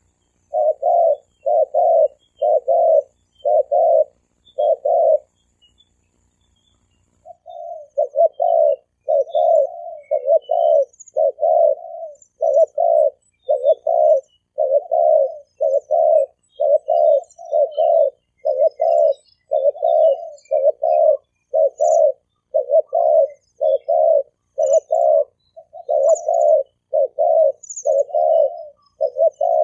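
Spotted dove cooing in the 'thổ kim' call style used to lure wild doves, male and female. There are six coo notes, a pause of about two seconds, then a long, even run of repeated coos.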